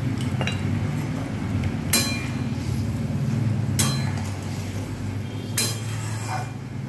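Flat metal spatula stirring curry in a metal kadai, with three sharp clinks of the spatula against the pan about two seconds apart over a steady low hum.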